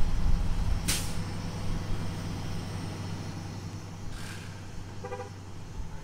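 Flatbed tow truck's engine idling steadily, with two short hisses about one second and four seconds in and a brief pitched sound near the end.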